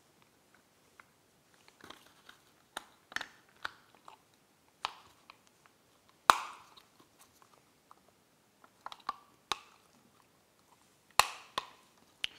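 Plastic Raspberry Pi case parts being slid and snapped together by hand: a series of sharp clicks and scraping taps as the top pieces of the case click into place, the loudest about six seconds in and again about eleven seconds in.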